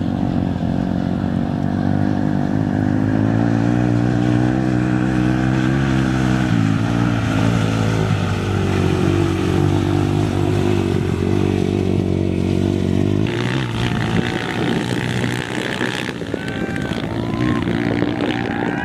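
Dirt bike engine revving hard as the rider splashes through a shallow river crossing, its pitch rising and falling with the throttle. About thirteen seconds in the close engine sound cuts off, leaving a more distant, noisier background with a few short chirps near the end.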